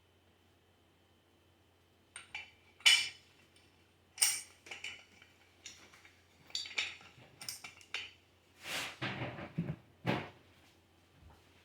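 Metal parts of a hand-cranked meat grinder clinking and knocking together as it is put together: a string of separate clinks starting about two seconds in, the sharpest about a second later, and a longer scraping rub of metal on metal near the end.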